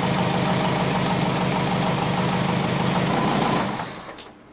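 Twin-turbo Subaru Forester's EJ20 flat-four boxer engine idling steadily, with exhaust still leaking at the wastegate, then switched off about three and a half seconds in, the sound dying away quickly.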